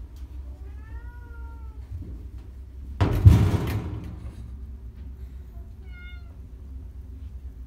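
Calico cat meowing twice: a long meow that rises and falls about a second in, and a shorter, falling one near the end. Between them, about three seconds in, comes a loud thump with a rustle that fades over a second, the loudest sound.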